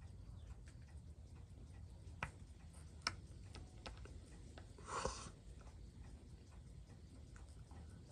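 Faint, scattered small clicks and taps of watchmaker's tools on the parts of a watch movement being worked on by hand, with a short hiss about five seconds in.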